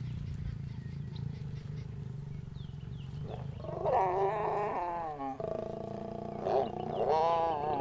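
A mating pair of lions snarling: a low growling rumble at first, then a long, wavering snarl about four seconds in and another near the end, the lioness's open-mouthed growl that comes during copulation.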